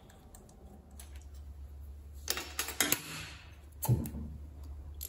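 A wrench clicking and clinking against the bolts and flange as the carburetor insulator is unbolted from a Honda ATC200 cylinder head: a cluster of light metallic clicks from about two and a half to three seconds in and another about four seconds in, over a faint steady low hum.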